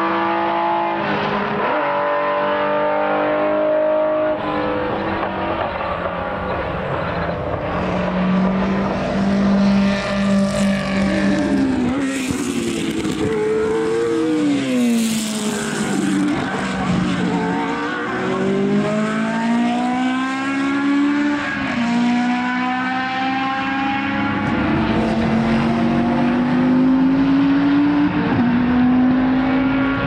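Historic racing cars on track at speed, several engines at once. Around the middle one passes close with a falling pitch, and later an engine note climbs in steps through upshifts.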